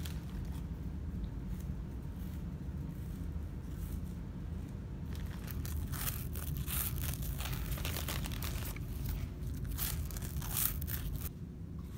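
Cheetos being eaten close to the microphone: crunching and chewing mixed with the crinkle of the snack bag, over a low steady rumble. The crunches come thick and fast from about five seconds in and stop shortly before the end.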